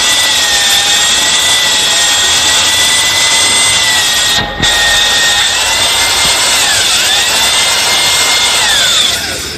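Electric drill spinning a cylinder hone inside an engine block's cylinder sleeve, a steady high whine as it hones the bore. It cuts out for a moment about halfway, dips briefly in pitch, and winds down near the end.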